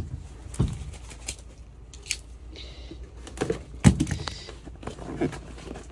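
Cardboard boxes being handled and set down on a ribbed rubber van floor mat: a scatter of light knocks and a short cardboard scrape, with one sharper knock just before four seconds in.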